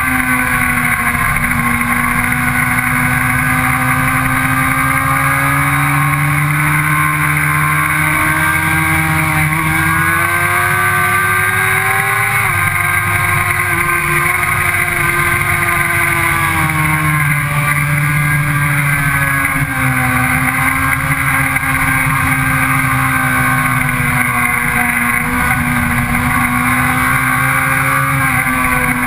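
Sport motorcycle engine running hard on a track lap, its pitch climbing as the rider accelerates and dropping sharply a couple of times as he brakes and rolls off for corners.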